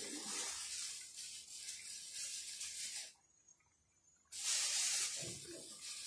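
Pasta boiling hard in water in a frying pan: a bubbling hiss that cuts out for about a second midway, then comes back.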